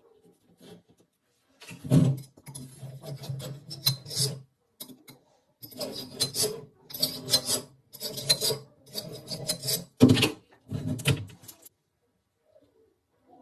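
Abrasive rasping strokes of hand filing or sanding on a rifle part being restored: a longer run of strokes, a short pause, then about seven back-and-forth strokes of under a second each.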